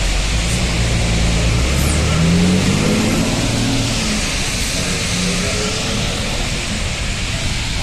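A car engine accelerating, its pitch rising over the first few seconds, over a steady hiss that is typical of a large fire burning.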